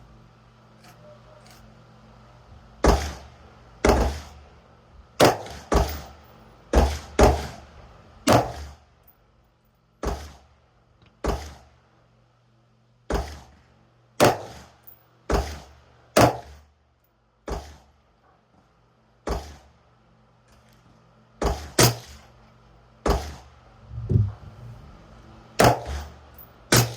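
About twenty rifle shots from an AR-15 firing 5.56 ammunition, each a sharp crack, spaced roughly a second apart with some pauses.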